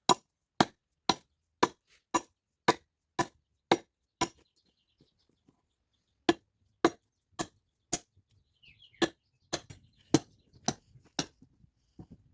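Axe chopping hard jurema firewood: sharp, ringing strokes about two a second, pausing for about two seconds roughly four seconds in, then resuming for another run of strokes.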